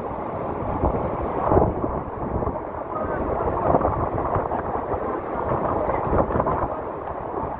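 Wind buffeting the microphone: a steady, rumbling noise that rises and falls in gusts.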